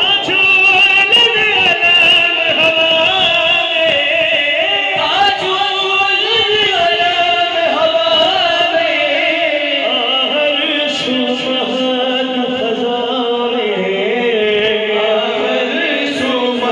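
Several men's voices singing a devotional song together into microphones, in long, held melodic lines with no instruments.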